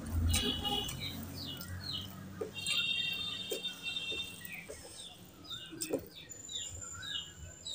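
Small birds chirping over and over in short falling chirps, with a couple of brief trills. Under them, soft clicks and wet squelches of rice and curry being mixed by hand on a plate.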